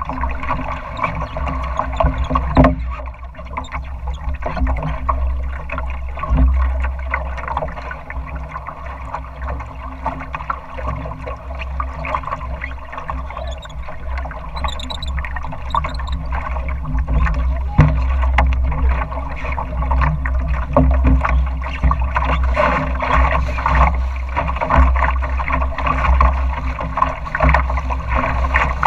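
Water sloshing and splashing against the hull of a small Northeaster Dory sailboat moving through choppy water, with frequent small slaps and knocks, over a steady low rumble.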